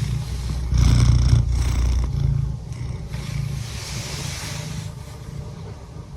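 Domestic cat purring close to the microphone, a steady pulsing low rumble, with a louder breathy burst lasting about a second, starting about a second in, and a softer airy hiss around four seconds in.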